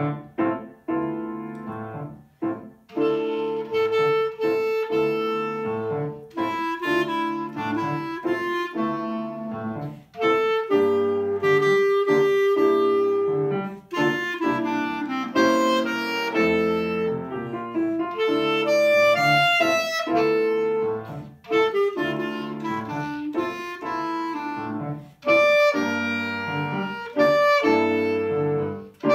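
Clarinet playing a slow melody with piano accompaniment. The piano plays alone for the first few seconds, then the clarinet comes in with long held notes.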